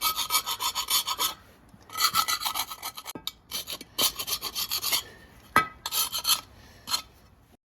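Quick back-and-forth scraping on a metal part of a Subaru Sambar 360cc two-stroke engine, in four bursts of rapid strokes with short pauses between them. There is a sharp click about three quarters of the way in. It is the sound of burnt deposits being cleaned off the part.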